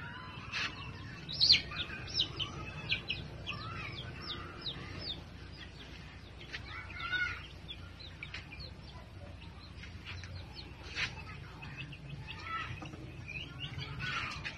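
Backyard chickens calling: a quick run of short, high chirps and peeps in the first few seconds, then scattered clucks and lower calls.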